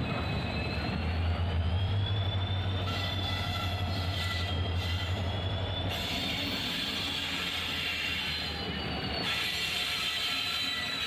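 A train running on the rails, a steady rumble with thin, high squealing tones from the wheels on the track.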